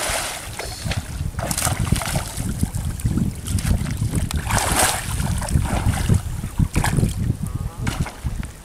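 A cast net hitting the water with a wide splash at the very start, then intermittent water sloshing as the fisherman stands in the water and hauls in the hand line, all under heavy wind rumble on the microphone.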